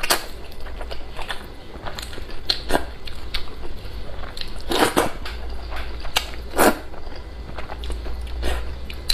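A person eating wide flat noodles in spicy soup close to the microphone: wet chewing and lip smacks throughout, with a few louder slurps of noodles, the strongest about five and six and a half seconds in.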